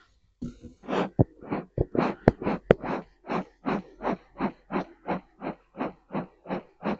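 Bee smoker bellows being pumped, a quick even run of puffs at about three a second, with a few sharp clicks among them.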